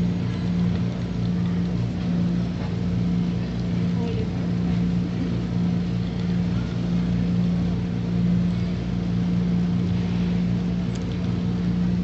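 Fully automatic coffee machine running with a steady hum while dispensing a long espresso.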